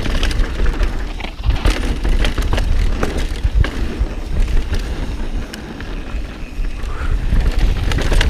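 Mountain bike descending a dirt trail: tyres rolling over dirt and rocks, with the bike rattling and knocking sharply over bumps, over a steady low wind rumble on the microphone.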